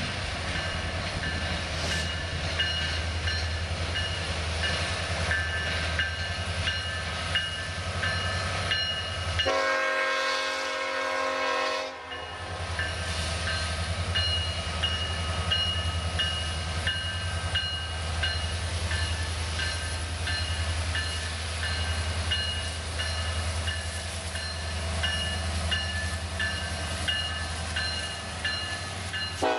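Union Pacific freight train's lead diesel locomotives approaching and rolling slowly past, engines rumbling under a steadily ringing locomotive bell. The horn sounds one chord for about two and a half seconds, about ten seconds in.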